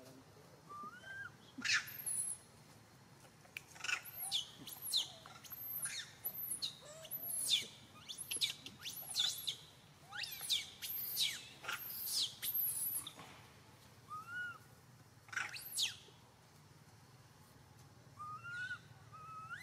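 Baby long-tailed macaque calling: a few soft coos that rise and fall, and from about two seconds in a quick run of shrill, high-pitched squeals and chirps lasting some ten seconds, with one more a little later.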